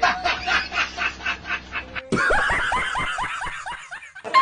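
Laughter in two spliced clips: a rapid run of short, breathy laughs, then after an abrupt cut about two seconds in, a string of pitched laughs that fade away.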